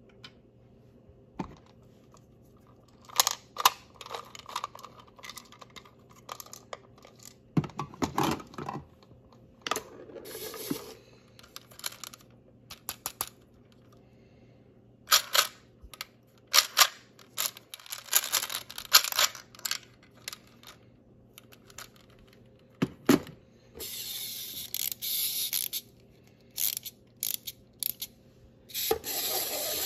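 Small plastic toys being handled: miniature gumball machines and a toy vending machine with little capsules. There are scattered clicks, taps and knocks of plastic, some in quick runs, and about two seconds of steady scratchy noise a little after the middle.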